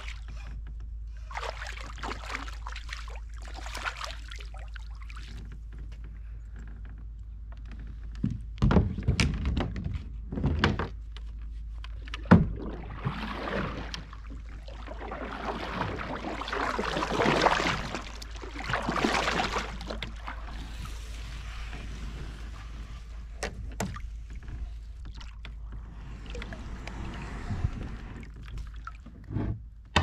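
Kayak paddle strokes swishing and splashing through the water in spells, with a few sharp knocks about a third of the way in, the loudest sounds, against a steady low rumble.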